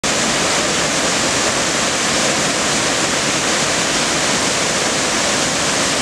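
Waterfall pouring over rock ledges into a pool: a loud, steady, unbroken rush of falling water.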